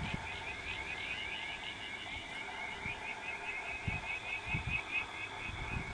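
A chorus of small calling animals, a steady rhythmic chirping of about four to five calls a second, with a few soft low thumps.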